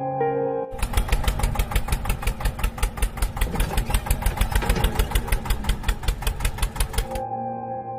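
Engine chugging at an even idle, about six to seven beats a second, of the kind used for a tractor. It starts abruptly about a second in and cuts off abruptly near the end.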